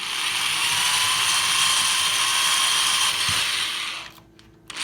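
Power drill running steadily for about four seconds as it bores a hole into a kitchen cabinet, stopping and starting again briefly near the end.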